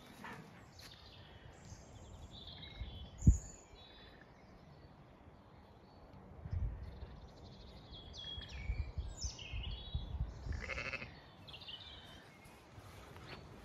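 Zwartbles ewes and lambs bleating off and on, fairly faint, with one sharp knock about three seconds in.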